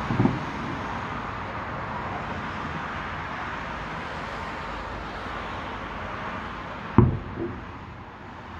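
Distant fireworks going off: a dull thump just after the start and a sharp, louder bang about seven seconds in, followed by a smaller thump, over steady traffic noise.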